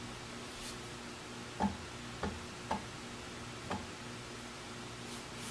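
A bristle brush loaded with shellac tapped against the rim of the shellac can four times in quick, uneven succession, with a few faint brush swishes between.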